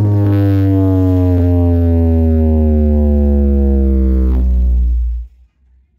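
A horeg sound system's stacked subwoofers playing a loud electronic bass drone whose pitch slowly falls, with heavy deep bass underneath. It cuts off suddenly about five seconds in.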